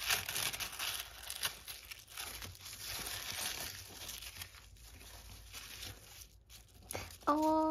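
Tissue paper rustling and crinkling as a tissue-paper packet is peeled open at its sticker seal and unfolded by hand, loudest in the first second. A short hum of voice near the end.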